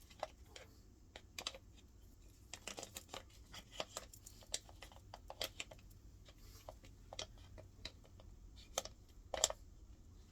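Irregular light clicks and taps of washing machine parts and screws being handled and fitted by hand, with two sharper knocks near the end.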